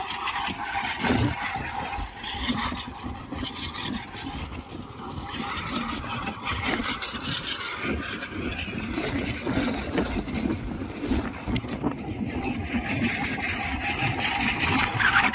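Tractor engine running with a rough, uneven rumble that grows louder toward the end.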